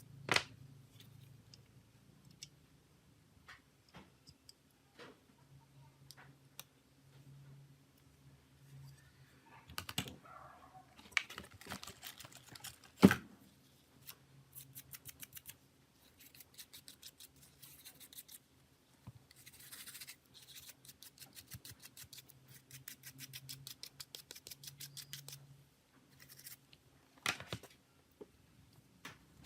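Small hand-tool work on a phone's parts: scattered sharp clicks and taps, the loudest about halfway through, then runs of quick, even scratching strokes.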